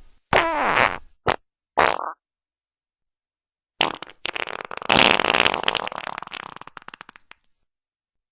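Fart sound effects: three short farts in the first two seconds, the first falling in pitch. After a pause comes one long, sputtering fart of rapid pulses that trails off over about three and a half seconds.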